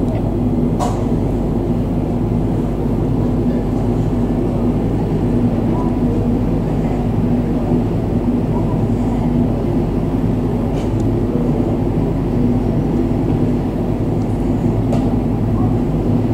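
Saab 2000's Rolls-Royce AE 2100 turboprop engines running at ground idle during pushback, a steady, loud, deep drone.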